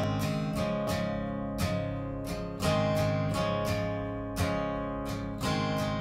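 Background music: an acoustic guitar picking single notes and chords, each plucked note ringing out and fading.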